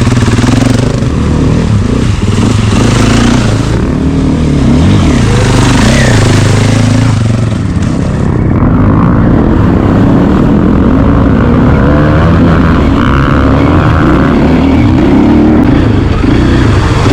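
A motor engine running, its revs rising and falling.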